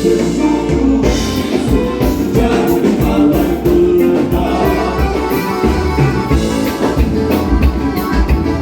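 Live Gaúcho dance band playing a vanera, with a steady drum-kit beat and accordion, and singing.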